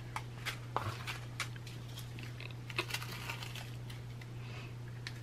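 Small clear plastic bags of resin diamond-painting drills being handled: scattered light clicks and crinkles as the bags are set down and picked up.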